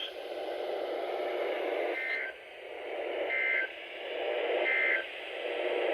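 NOAA Weather Radio audio: steady radio hiss with three short warbling data bursts about 1.4 s apart. These are the SAME End of Message tones that close the Required Weekly Test.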